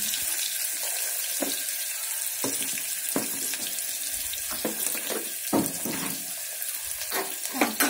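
Chopped onions frying in oil in an open pressure cooker, a steady sizzle. Several light clicks and knocks from plastic container lids being handled sound over it.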